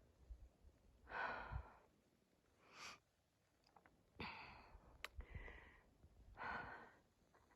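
A hiker breathing hard: about five loud breaths in and out, each under a second long and roughly a second apart, with faint low thumps in between.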